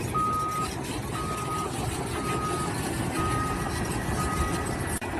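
Vehicle reversing alarm beeping about once a second, five even half-second beeps with the last one fainter, over the low rumble of a heavy vehicle's engine.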